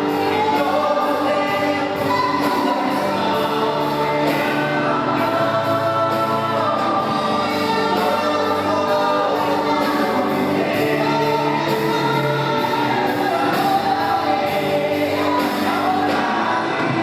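Gospel worship song: a group of voices singing together with music, steady throughout.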